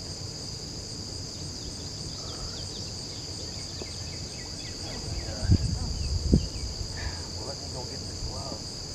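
Steady high-pitched insect chorus, with a few small chirps over it. Two sharp low thumps stand out, the loudest sounds, about five and a half and six and a half seconds in.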